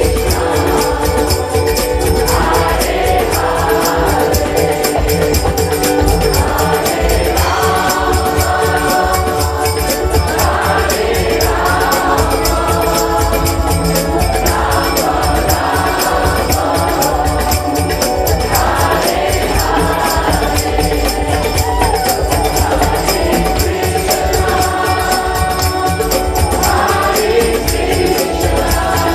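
A kirtan group and crowd singing a devotional chant together over a droning harmonium. Hand drums and small cymbals keep a steady beat, and the sung phrase repeats every few seconds.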